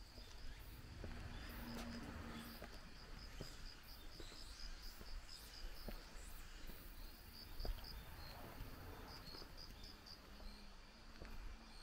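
Insects chirping in a steady run of short, high-pitched pulses, with the soft irregular footsteps of someone walking along a path.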